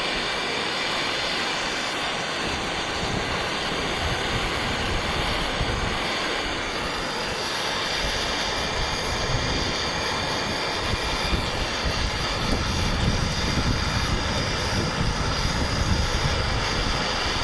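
Handheld gas torch burning with a steady roar as its flame heats a copper pipe joint for soldering.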